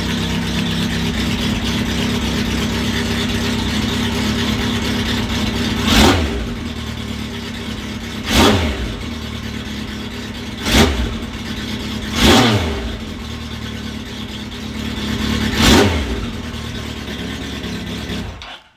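Engine idling with a steady rumble, revved up and let fall back five times, ending abruptly near the end.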